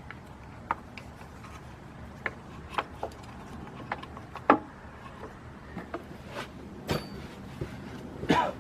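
Scattered clicks and knocks of an ignition coil and spark tester being handled and fitted in the engine bay, over a low steady hum, with a louder clatter near the end.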